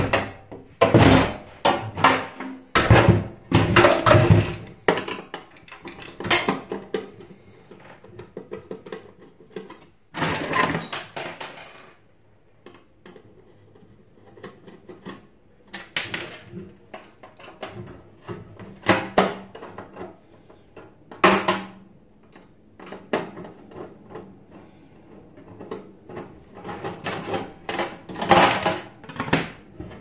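Irregular clunks, knocks and rattles of a microwave oven's sheet-metal casing and panels being handled and unscrewed with a screwdriver, busiest in the first few seconds and again near the end.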